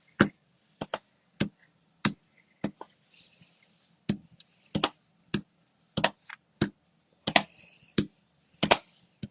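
An ink stamp pad tapped again and again onto cardstock on a tabletop to dab on splotches of ink, about fifteen short taps at an uneven pace of one or two a second.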